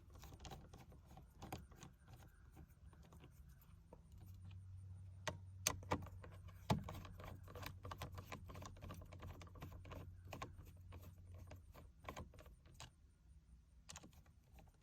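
Irregular light clicks and ticks of a hand screwdriver and plastic steering-wheel parts being handled, with a faint low steady hum in the background through the middle.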